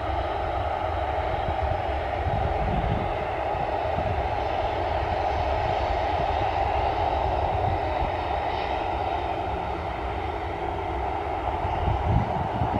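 Jet engines of a taxiing Ryanair Boeing 737 running steadily at low taxi thrust: an even, continuous rush with a low rumble beneath it.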